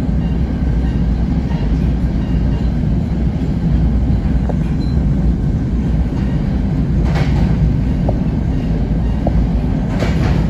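A passenger train coach running along the track, heard from inside the car: a steady low rumble of wheels on rail. A couple of brief sharper clicks or rattles come about seven and ten seconds in.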